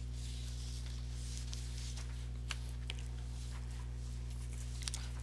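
Steady low electrical hum in the recording, with faint rustling and a few light clicks.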